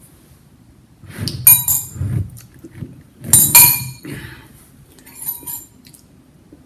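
A ceramic cereal bowl clinking as it is handled at the table: two sharp, ringing clinks about a second and a half and three and a half seconds in, with softer knocks between and a fainter clink a little after five seconds.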